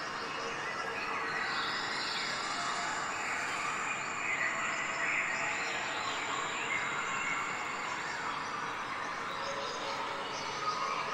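Birds chirping over a steady outdoor background hiss.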